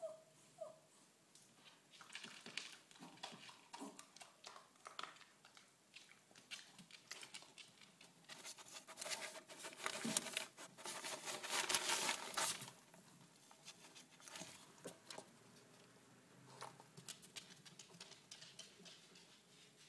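A Jack Russell terrier's paws and claws pattering and ticking on wooden floorboards as it moves about, in scattered clicks. About halfway through there is a louder stretch of close scuffling lasting a few seconds as the dog passes right by.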